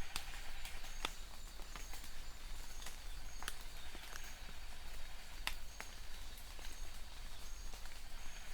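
Steady rain hiss with heavier drops tapping irregularly close by. A short, faint high chirp repeats about once or twice a second throughout.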